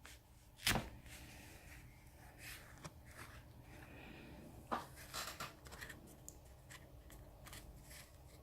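Faint clicks and light scraping of a plastic card being worked around the edge of a Samsung Galaxy S6's glass back cover to pry it loose from its adhesive, with one sharper click about a second in and a few more clicks past the middle.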